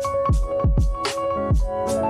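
Background music: held keyboard chords over a drum beat with deep kick drums.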